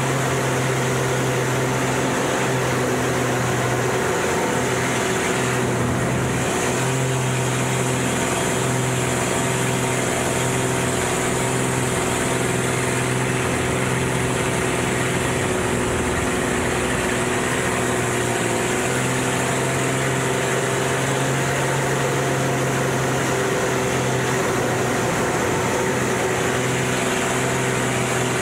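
Aerobatic monoplane's piston engine and propeller droning steadily, heard from inside the cockpit with a rush of air noise. The drone sags briefly a few times as power changes through the manoeuvres.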